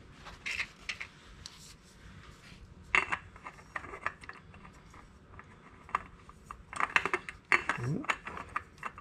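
Small clicks and clinks of a new spin-on oil filter being handled and threaded by hand onto a motorcycle engine. There is a louder cluster of knocks about three seconds in and a denser run of clinks near the end.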